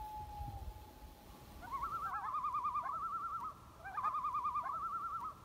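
Common loon tremolo call: a rapid, wavering, laughing call in two runs of about a second and a half each, with a short gap between them. A held tone fades out in the first second.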